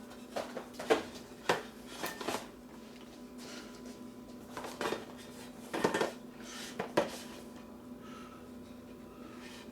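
A cardboard keyboard box being handled: a string of sharp taps and knocks, a few at a time, with the last strong one about seven seconds in, over a faint steady hum.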